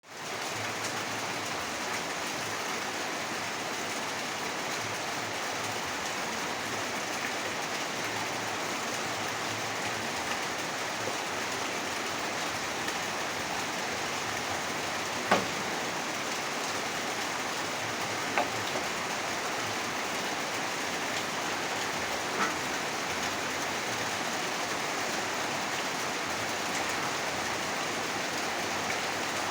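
Rain falling steadily, an even hiss of rain with a few sharp clicks scattered through it, the loudest about halfway through.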